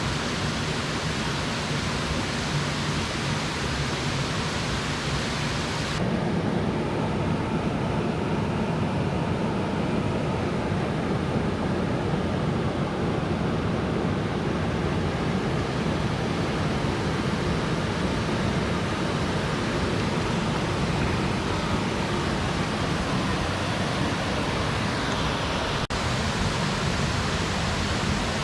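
Mountain stream water rushing and splashing over rocks, a steady loud rush. About six seconds in it turns deeper and duller, and near the end it brightens again.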